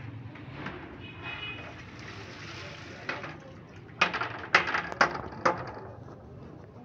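Large aluminium cooking pot and lid clanking: about five sharp metallic knocks with a short ring, in quick succession halfway through, over a low background murmur.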